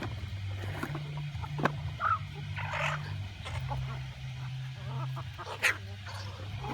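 Chickens making short calls, with a couple of sharp taps, over a steady low hum that shifts in pitch.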